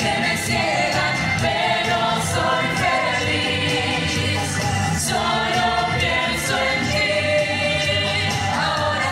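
Live musical-theatre number: a woman sings lead into a microphone over music, with a chorus of voices singing along.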